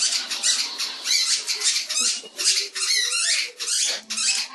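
A dog's squeaky toy being squeezed in the jaws, giving rapid high-pitched squeaks with a wavering pitch, about two a second, that stop at the end.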